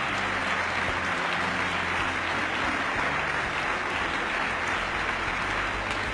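A large audience applauding steadily in a standing ovation, a dense even clapping with no speech over it.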